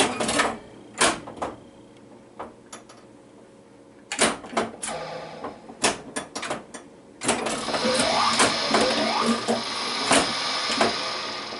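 Bally Flash Gordon pinball machine in play: sharp clacks of the ball striking targets and solenoids firing, at uneven intervals. From about seven seconds in comes a dense run of the machine's electronic sound effects with sweeping tones.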